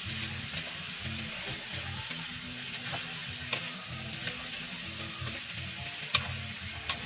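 Chicken feet frying in a pan, a steady sizzle with a few sharp clicks about halfway through and near the end.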